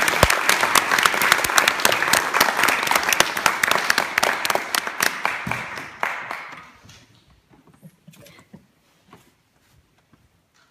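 Audience applauding: dense clapping that thins out and dies away about six to seven seconds in, followed by a few faint scattered knocks.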